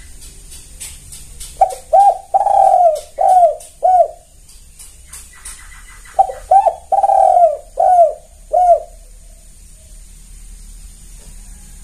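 Spotted dove cooing: two phrases about four seconds apart. Each has a quick pair of notes, one longer drawn-out note, then two shorter notes.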